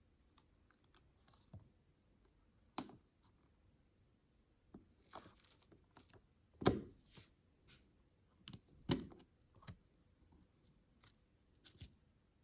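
Small plastic clicks and snaps from an arrow keycap and its clips being worked off an Apple Magic Keyboard for iPad: scattered light ticks, with three sharper snaps about three, six and a half, and nine seconds in.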